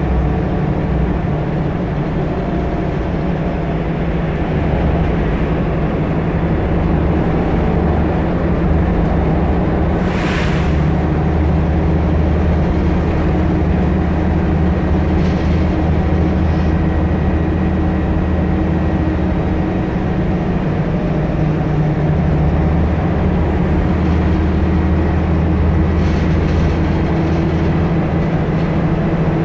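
Volvo Endurance single-deck bus heard from inside the saloon while it drives: a steady, loud diesel engine drone with road and body noise. A short hiss comes about ten seconds in.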